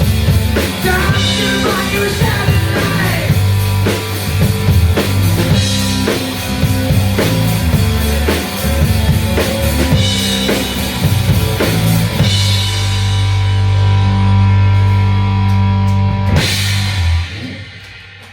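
Rock band playing live with a drum kit keeping a steady beat, then holding a long final chord about two-thirds of the way in, closed by one last hit that rings and dies away near the end.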